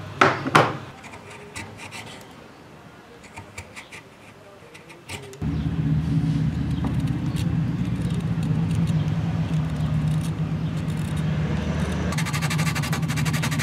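A couple of sharp knocks at the start, then faint scraping and clicks of a carving knife cutting into a small wooden piece. About five seconds in, a steady low motor-like hum starts suddenly and stays louder than the carving.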